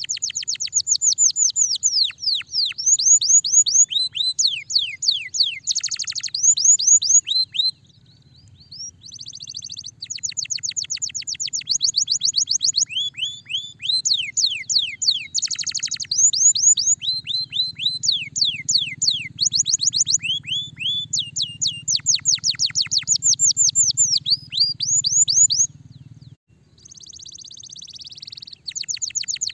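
Domestic canary singing a long song of fast trills: rapid runs of high notes, each sweeping downward, with short breaks about eight seconds in and near the end. A faint low hum runs underneath and stops near the end.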